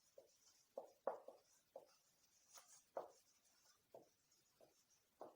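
Faint writing sounds: a string of short pen strokes about every half second in a quiet small room.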